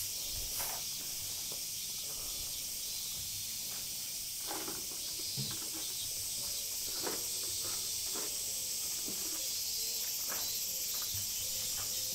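Steady, high-pitched insect drone, like summer cicadas in the trees, with a few faint footsteps or knocks scattered through it.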